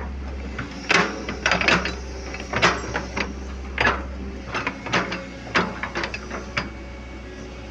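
About a dozen sharp, irregular metal clanks and knocks over a steady low engine rumble, from heavy equipment being loaded onto a trailer truck.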